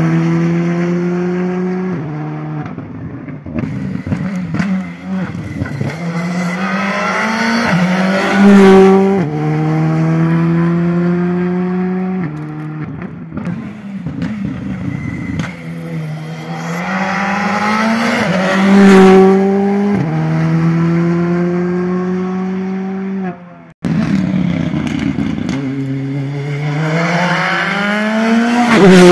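Rally cars at full throttle passing one after another. Each engine revs up through the gears, climbing in pitch and dropping back at every quick upshift, loudest as each car goes by, three times in all. The sound breaks off abruptly near the end and starts again.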